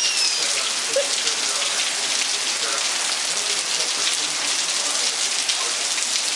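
Steady rain falling, a constant hiss of drops hitting the ground.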